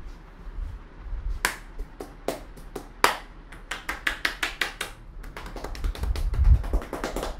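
Hands slapping and clapping on a head during a percussive head massage: sharp strokes, some single and some in quick irregular runs.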